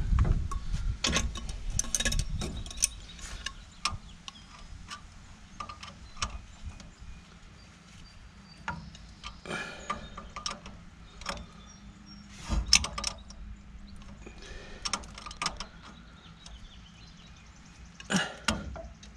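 Hand work on a pipe fitting: Teflon tape being wrapped on and the fitting handled and threaded in, heard as scattered small clicks, taps and rustles. A few louder knocks come near the start, about two-thirds of the way through and near the end.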